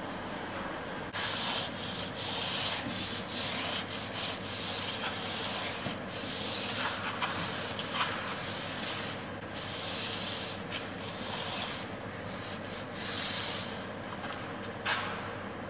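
Mop strings rubbing and scraping over a hard surface in irregular strokes, starting about a second in.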